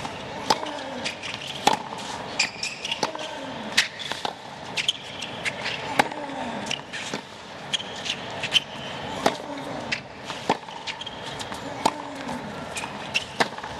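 Tennis rally: the ball struck back and forth by rackets, a sharp pop roughly every second, over the steady murmur of a stadium crowd.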